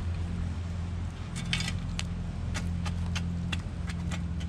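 Metal shovel scraping and clinking through hot coals and ash in a fire pit: a quick cluster of scrapes about a second and a half in, then a string of short clinks about three a second, over a steady low rumble.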